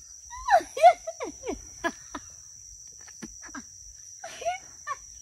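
Steady, high-pitched chirring of insects, with several short vocal sounds that fall in pitch, loudest about half a second to a second in and recurring briefly later.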